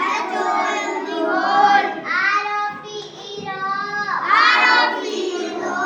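A group of children chanting words aloud together in sing-song unison, in phrases of about a second each.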